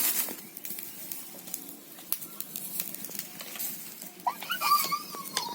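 Faint scattered clicks and light knocks, then about four seconds in a cat starts a long meow that slowly falls in pitch.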